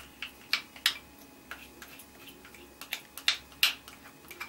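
Plastic spatula tapping and scraping against the rim of a small bowl as yogurt is scooped out into a glass mixing bowl. About ten light, irregularly spaced clicks, the sharpest about a second and three and a half seconds in.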